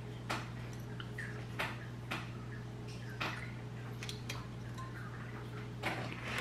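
A handful of small, sharp clicks and taps at irregular intervals as a small tension spring is hooked onto the tab of a laser-printer fuser unit's separation blade, over a steady low hum.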